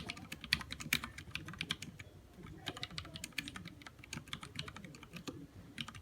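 Continuous fast typing on a mechanical keyboard with lubricated Cherry MX Black linear switches, a dense run of key clicks and clacks with a brief let-up about two seconds in.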